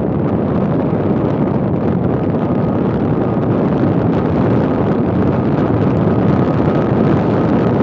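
A steady, dense drone of noise, heavy in the low range like wind or an engine heard from inside, with a faint thin steady tone above it, growing slowly louder. It is an ambient sound effect presented as the sound of the real Matrix.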